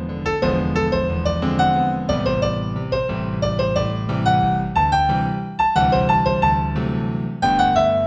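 Solo piano piece in G major at a moderate tempo of about 90 beats a minute: a melody of single notes over sustained chords in the lower register.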